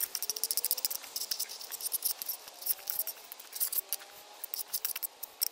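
Table knife rapidly sawing and scraping through food against a plate: quick, scratchy strokes that thin out toward the end.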